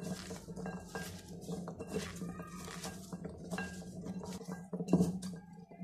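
Raw potato wedges dusted with cornflour being tossed by hand in a white bowl: irregular small clicks and knocks of the pieces against the bowl and each other, over a steady low hum.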